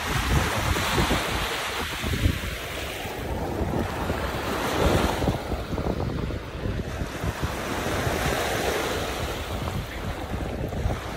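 Small waves breaking and washing up a sandy beach, the surf swelling and fading every few seconds, with wind buffeting the microphone.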